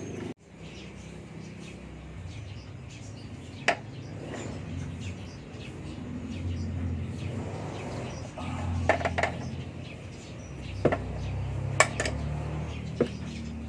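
Sharp metal clinks, about six scattered single strikes, as an adjustable wrench works the heat-loosened rear axle nut of an electric kick scooter, over a low background rumble.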